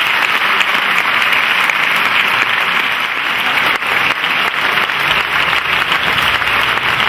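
Large audience applauding steadily, a dense clatter of many hands clapping.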